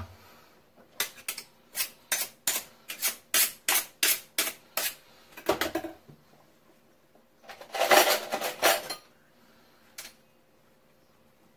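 Kitchen utensils clinking and clattering while a kitchen knife is fetched: a quick run of light metallic clicks, about four a second, then a short rattle a little past the middle and a single click near the end.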